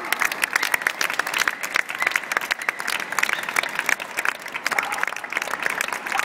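Audience applauding: many people clapping at once in a dense, irregular patter.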